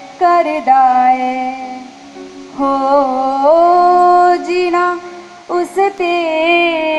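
A young girl singing a Punjabi Christian devotional song into a microphone, in phrases of several long held notes.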